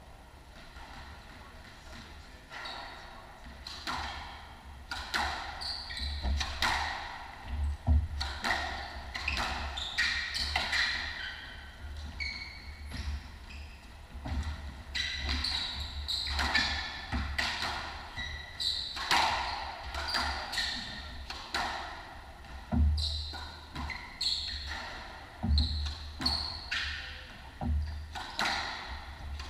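A squash rally starting a few seconds in: the ball repeatedly smacking off rackets and walls with ringing in the court, shoes squeaking on the wooden floor, and deep thuds of footfalls and ball impacts.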